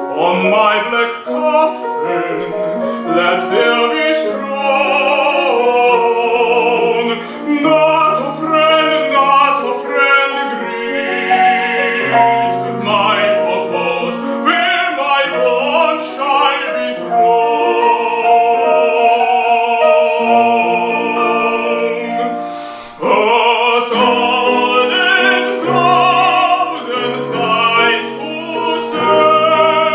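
A classical tenor singing an English art song with vibrato on long held notes, over piano accompaniment. The music breaks off briefly about two-thirds of the way through, then resumes.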